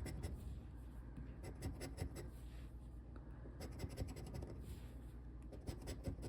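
Scratch-off lottery ticket being scratched by hand: quick, irregular scraping strokes rubbing off the coating.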